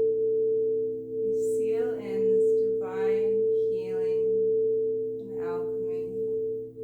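A steady, pure ringing tone from a sound-healing instrument, held throughout with fainter lower tones beneath it. A voice makes about four short wordless vocal sounds over it.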